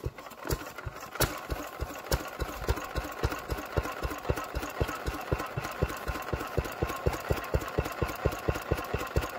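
Vintage single-cylinder stationary engine running with a regular firing beat that quickens over the first couple of seconds, as after starting, then settles to about five or six beats a second.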